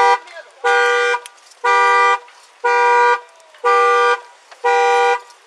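Car alarm honking the car's horn in regular blasts, about one a second, each about half a second long.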